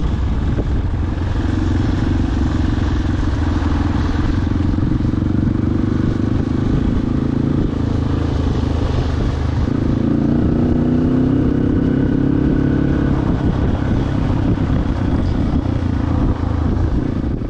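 A motor vehicle's engine running steadily, its pitch shifting about ten seconds in.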